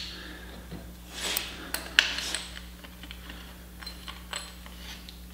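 A few light metallic clinks and some rubbing as a tubular steel front control arm and its polyurethane bushings are handled and twisted, with one sharper click about two seconds in.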